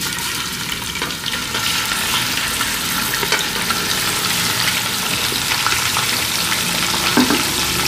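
Raw mutton pieces frying in hot desi ghee: a steady sizzle with scattered small pops as the meat goes into the fat.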